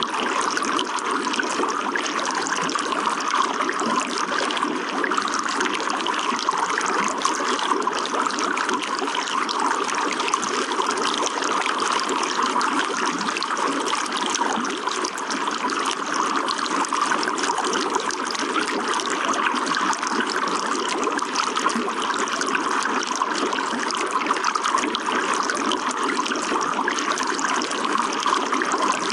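Running water trickling steadily in an even, unbroken stream.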